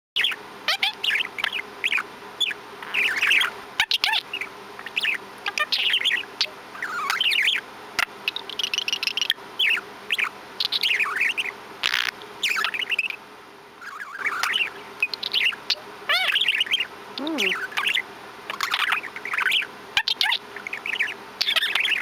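Pet budgerigar chattering in a steady stream of quick warbled chirps and squeaks. About halfway through it makes a short farty noise.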